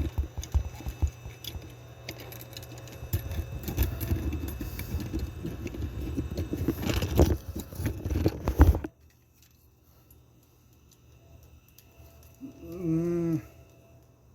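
Packaging being handled and torn open, with crinkling, rustling and many small clicks and knocks, for about nine seconds before it stops abruptly. Near the end there is a short, wavering hum of a voice lasting about a second.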